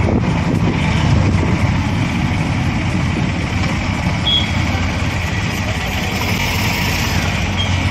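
Auto-rickshaw engine running steadily as the three-wheeler drives along a city road, heard from inside the open cab with road and traffic noise around it.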